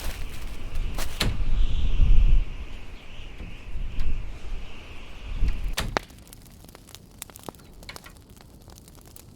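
Fireplace fire crackling, with sharp pops and snaps. For about the first six seconds a layered effect of low rumble and high hiss plays over it, then cuts off, leaving only the scattered crackles.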